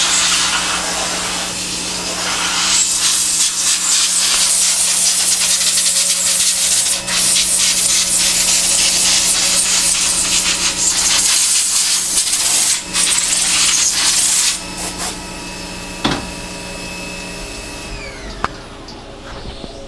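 Compressed-air blow gun hissing loudly as it blasts brass chips out of freshly drilled holes to clear them for rigid tapping, with many small ticks through the blast; it stops about 14 seconds in. A steady machine hum carries on underneath, and a high tone falls away near the end.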